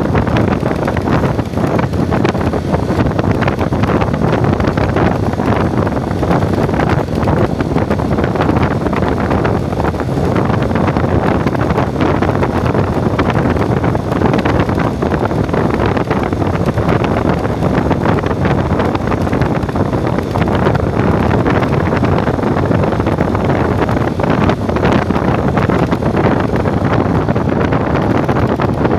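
Loud wind buffeting the microphone on a moving vehicle, with steady travel and engine noise underneath.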